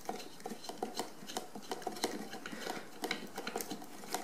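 Small, irregular plastic clicks and ticks as the thumbscrew on a GoPro housing mount is twisted loose, hard plastic parts knocking together under the fingers.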